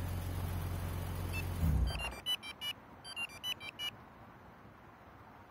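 The BMW M3's remote-started straight-six engine idling, then shutting off about two seconds in. This is followed by a quick run of short electronic beeps, a little melody from the Viper 5906V two-way pager remote confirming the command.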